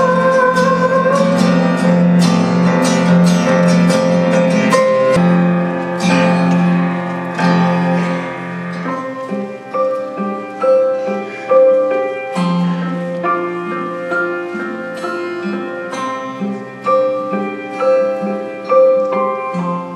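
Instrumental music with plucked guitar-like notes over a repeating low bass line. A held, wavering sung note fades out about a second in.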